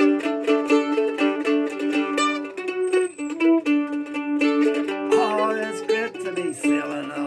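A-style mandolin played solo with fast picking, a bright melody of quickly changing notes over ringing strings.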